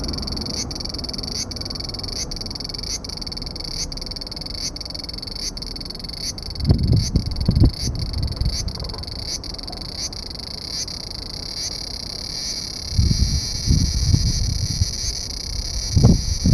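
Large brown cicada (aburazemi) singing a steady, high, sizzling buzz, with faint regular pulses under one a second early on. Low rumbles come in briefly about seven seconds in and again from about thirteen seconds on.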